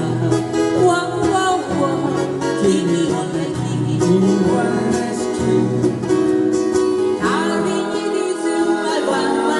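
Live band led by acoustic guitars playing an instrumental passage, with a moving bass line under the guitars.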